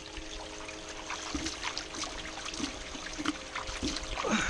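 Water running and trickling through a blue-mat sluice, spilling over as the sluice overflows, with small splashes and a faint steady hum underneath.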